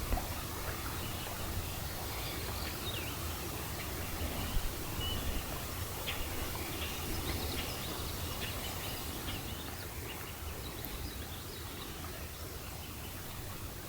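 Outdoor ambience at a pond: a steady low wind rumble on the microphone, with many short, scattered bird chirps.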